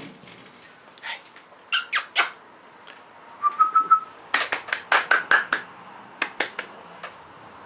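A person making quick, sharp kissing clicks with the mouth in short runs, with a brief whistle about three and a half seconds in.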